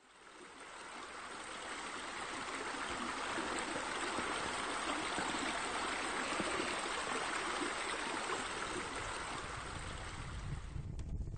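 Steady running water, fading in over the first couple of seconds. Near the end it gives way to a low rumble with a few clicks.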